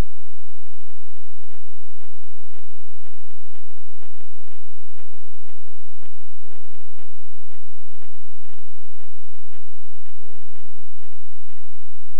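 Loud steady electrical hum and hiss with a couple of steady tones and faint regular ticks about three a second: noise on the analog FPV video link's audio channel, recorded by the goggles' DVR.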